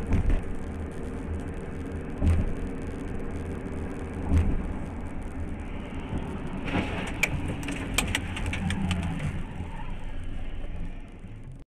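Steady road and engine noise of a car driving, heard from inside the cabin through a dashcam. A few dull thumps come about two seconds apart. A burst of sharp clicks and knocks follows about seven to nine seconds in, as another car passes close alongside.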